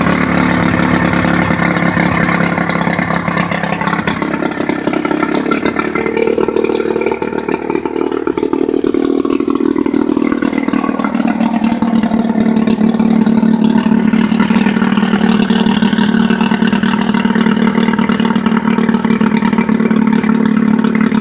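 15 hp Johnson two-stroke outboard motor (model J15RCSD) running. Its engine speed shifts about a third of the way through, then it settles into steady running for the rest.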